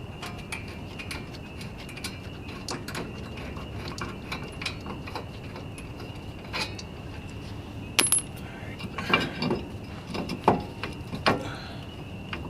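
Metal hand tools and parts clinking and tapping, with a run of louder metallic knocks and clanks from about eight to eleven seconds in. A faint steady high whine sits underneath.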